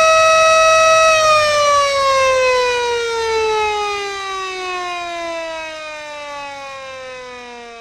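Siren holding one steady tone, then about a second in winding down: the pitch falls slowly and the sound fades away.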